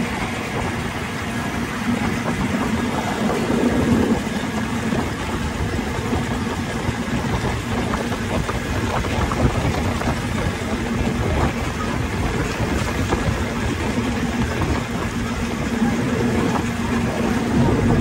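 Engine of the Harbour Hopper amphibious tour vehicle running steadily, heard from on board as a constant low hum that swells briefly about four seconds in and again near the end.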